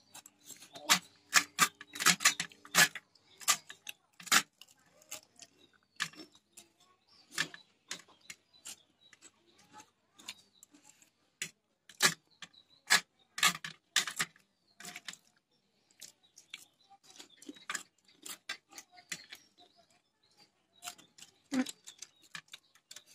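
Eating at a table: forks clicking and scraping on a plate, mixed with crunchy chewing, in short irregular clicks.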